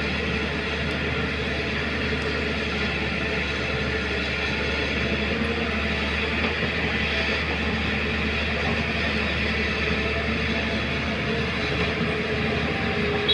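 Hyundai 215 Smart Plus crawler excavator running, a steady, unbroken machine drone.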